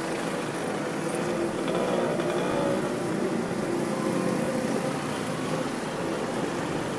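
Steady city street traffic noise, with a motor vehicle's engine running nearby.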